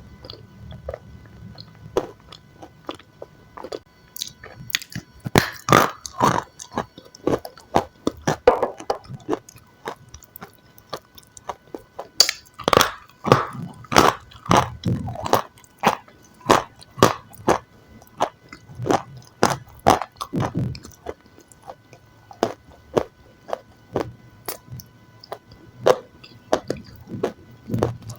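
Close-miked biting and chewing of crunchy food: many sharp, irregular crunches coming in runs, with short pauses between bites.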